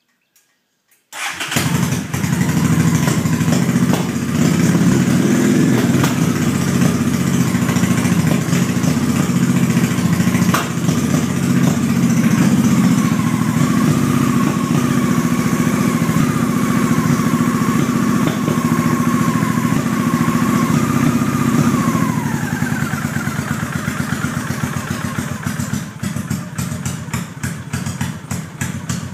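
Motorcycle engine being cranked on its electric starter for a long stretch without catching, with a steady starter whine that sags in pitch about three-quarters of the way through, after which the cranking slows and turns uneven. The engine will not fire even with the carburettor pilot screws set to three turns out.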